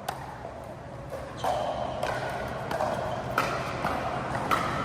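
Pickleball paddles striking the hollow plastic ball in a rally: about five sharp pops spaced roughly a second apart, over steady background noise that rises about a second and a half in.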